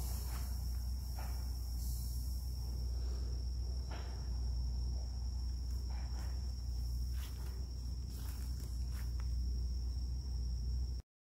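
Crickets chirring in one steady, unbroken high-pitched trill, over a low steady rumble, with a few soft brief clicks. It all cuts off suddenly near the end.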